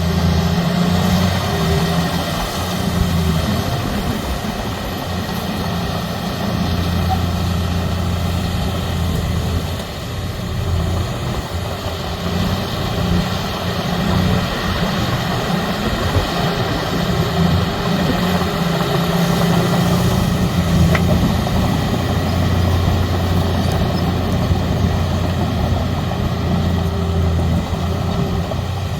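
Heavy diesel engines of earthmoving machinery running, a steady low drone that swells and eases as the load changes.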